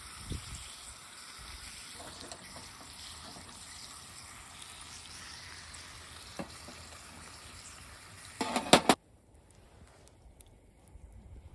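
Thick steak sizzling on a small grill over a charcoal fire, a steady hiss with faint scattered ticks. Near the end comes a brief loud clatter of clicks, then the hiss stops and it goes quiet.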